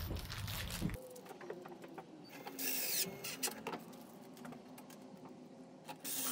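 Automatic chicken coop door's small electric motor running as it raises the door panel, a faint, slightly wavering hum. Two brief clatters break in, about two and a half seconds in and, louder, near the end.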